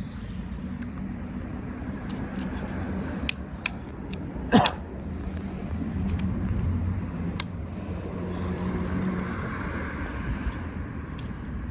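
A few small sharp clicks and taps from hand work on a motorcycle's plastic handlebar switch housing, the loudest about four and a half seconds in, over a steady low hum.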